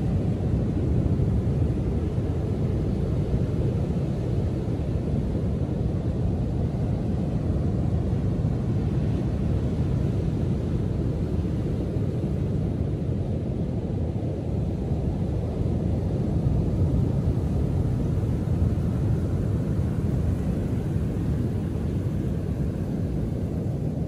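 Heavy surf on a storm-roughened sea: waves breaking offshore and washing up the sand, heard as a steady low rumble that swells slightly now and then.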